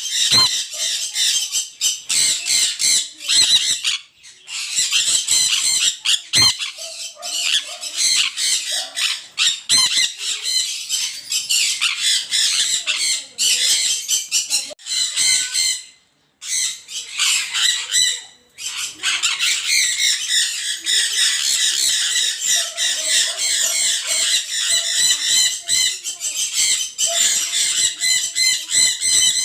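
A flock of small birds chirping and chattering together in a dense, continuous din of high, quick calls. It drops out briefly a few times.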